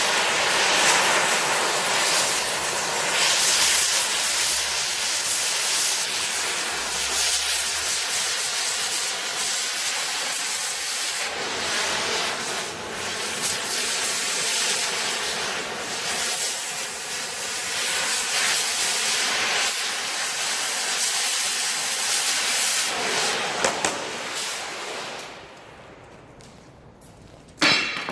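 Cutting torch hissing steadily as it cuts into the steel of an old safe. It shuts off about three seconds before a single sharp metallic knock near the end.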